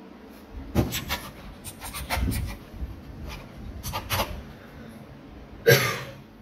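A man's breath and mouth noises close to the microphone: several short sharp puffs, then one loud harsh cough into his fist near the end.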